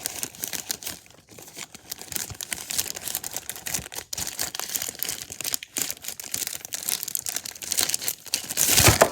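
Wrapping crinkling and rustling as it is handled and put back around a DVD holder, irregular crackles throughout with a louder crinkle near the end.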